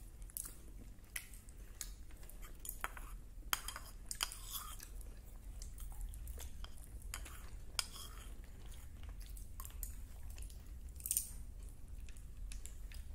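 Close-up eating noises: irregular small crunches and clicks of chewing and picking at food on a plate, over a low steady hum.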